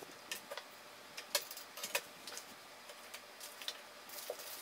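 Irregular light clicks and taps of a water-cooling radiator with its fan being handled and fitted against a PC case's rear mount, the loudest about one and a half and two seconds in.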